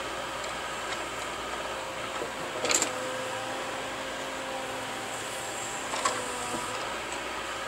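Jarcrac Dual tracked forwarder running steadily, its engine and hydraulics giving an even hum with a held whine. Two short, sharp knocks come about three seconds in and again about six seconds in.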